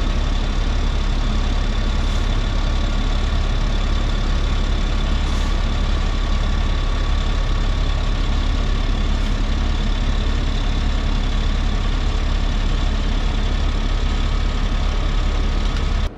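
Diesel engine of an M-B snow blower truck running steadily as the truck creeps slowly forward, with a faint steady whine over the engine note.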